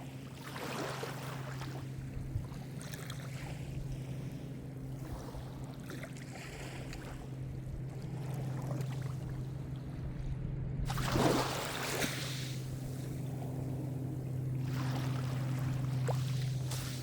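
Gentle Mediterranean surf: small waves washing in and draining back every few seconds, the biggest wash about eleven seconds in. Under it runs a steady low hum.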